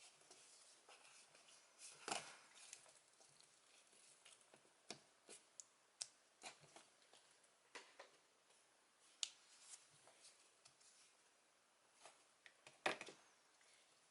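Faint, scattered clicks and taps of plastic Morph-X Key toys being handled, with the loudest clicks about two seconds in and near the end.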